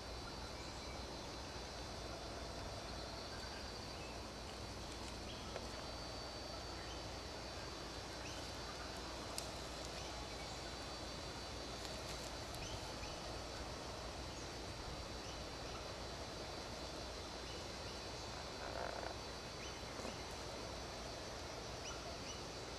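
Quiet bushland ambience: a steady faint hiss with faint high steady tones and a few faint distant animal calls.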